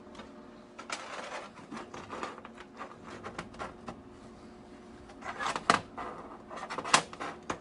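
Small steel parts being handled and set in place by hand on a metal work surface: scattered light clicks and clinks, with two louder knocks in the second half.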